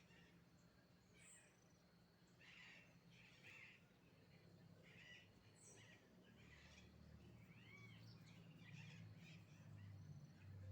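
Faint birdsong: scattered short calls, a few high thin chirps and one arching whistle about seven seconds in. A low hum grows louder over the last few seconds.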